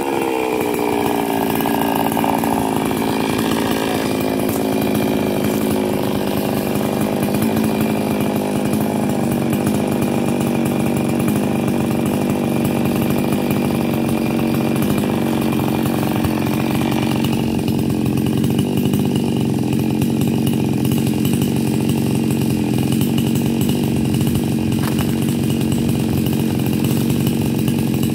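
Small chainsaw running without pause, its revs falling over the first couple of seconds and then holding steady. Its tone shifts about seventeen seconds in.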